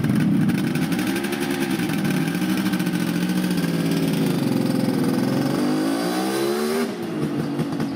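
Kawasaki H-series triple's three-cylinder two-stroke engine running and revving through its three separate exhaust pipes. The revs dip, then climb steadily and drop away abruptly about seven seconds in.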